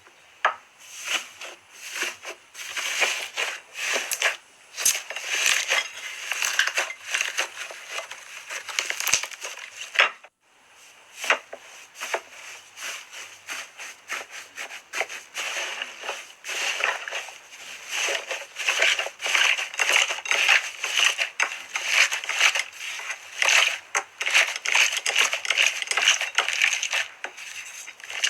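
Crunchy slime being squished and pressed, a dense run of crackling pops, with a brief pause about ten seconds in.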